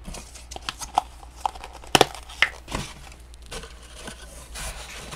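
Crumpled brown kraft packing paper being handled and pulled out of a styrofoam shipping box, crinkling and rustling with a run of sharp crackles.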